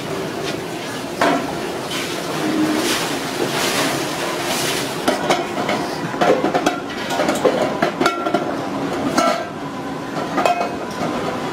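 Aluminium pressure cooker bodies clinking and knocking against one another and the concrete as they are set down in rows and stacked, with a steady background din. The knocks are thickest in the second half, some ringing briefly.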